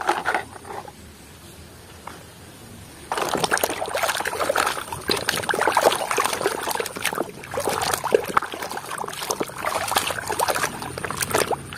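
Muddy water splashing and sloshing in a plastic basin as a toy truck is scrubbed and swished through it by hand, starting about three seconds in.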